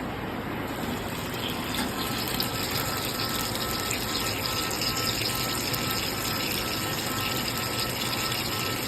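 EDM machine cutting, its dielectric fluid flushing and pump giving a steady watery rush. About two seconds in the hiss grows brighter, with a faint high tone pulsing in the background.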